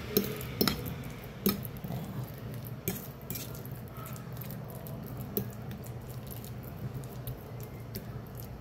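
Metal fork mashing and stirring soft banana on a ceramic plate: wet squishing with the tines clicking and scraping against the plate. The clicks come several times in the first few seconds, then more sparsely.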